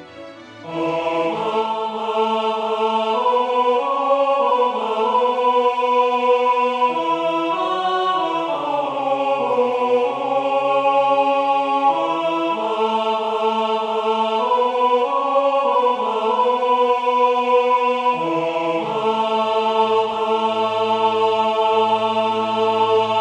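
Synthesized four-part choir voices from notation-software playback enter loudly about a second in and sing a hymn verse in steady block chords with no vibrato, held notes changing together ('Let every tribe and every tongue… lift high the universal song… and crown him').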